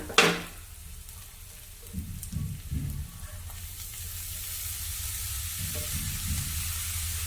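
Chopped agathi flowers frying and being stirred in a pan of hot coconut oil, a steady sizzle that grows louder from about halfway through, with a couple of sharp knocks at the start and a few soft thuds from the stirring.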